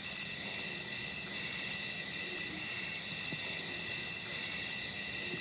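Insect chorus: a steady, high chirring at several pitches at once.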